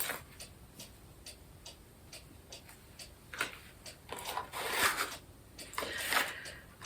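Steady light ticking, about two to three ticks a second, with two brief scraping or rustling noises about four and six seconds in.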